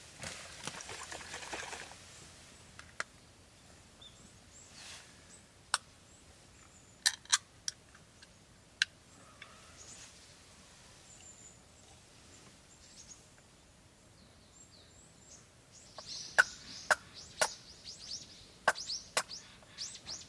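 Wood campfire crackling, with sharp single pops at scattered moments and a quick run of pops and hiss near the end.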